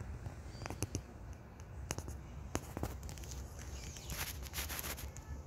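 Faint scattered clicks and light taps, with a low steady rumble underneath and a brighter cluster of clicks about four seconds in.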